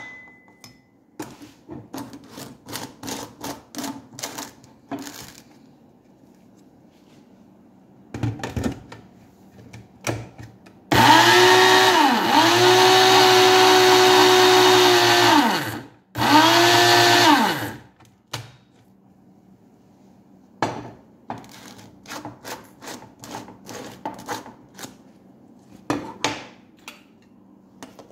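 Small electric personal blender motor running in two bursts, about five seconds and then about a second and a half, blending egg yolks and oil into mayonnaise; each burst dips in pitch as it starts and falls away as it stops. Before and after, clicks and knocks of the jar and blade base being handled.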